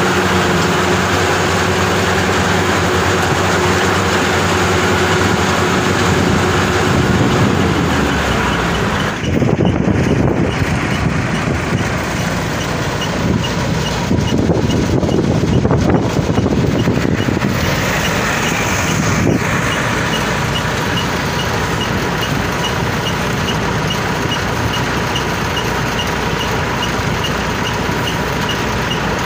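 Diesel engine of a tracked rice combine harvester running steadily; about nine seconds in it turns louder and rougher. Through the second half a short high pip repeats a few times a second.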